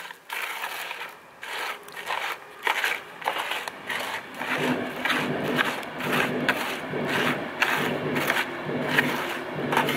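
A fork stirring chocolate-coated Frosties in a metal tin: repeated crunching, scraping strokes at an uneven pace, the cereal crackling and the fork scraping the metal.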